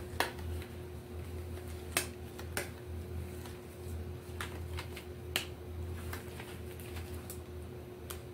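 Scattered sharp clicks and snaps of hands handling small objects, about half a dozen spread out and unevenly spaced, over a steady low hum.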